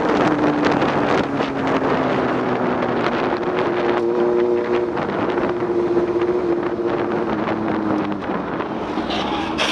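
A vehicle engine running steadily under heavy wind noise on the microphone, its pitch shifting slightly up and down.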